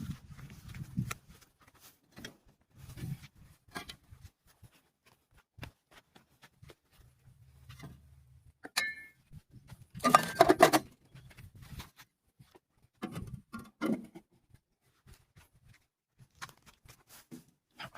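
Intermittent clicks, knocks and rustling from handling, with short louder bursts around the middle; no engine is running.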